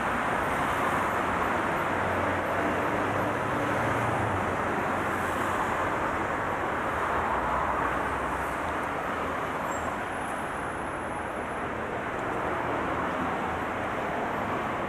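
Steady city traffic noise, with a low engine hum in the first four seconds or so.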